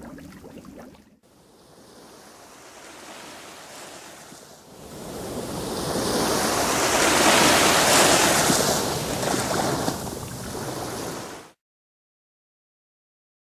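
Rushing ocean-surf sound, a wash of noise without any tone, under the intro logo. It swells to a loud surge about two-thirds of the way through, eases a little, then cuts off abruptly.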